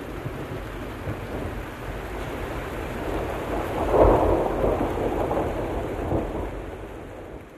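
Steady heavy rain with a rumble of thunder that swells about halfway through and rolls on, then the storm sound fades out near the end.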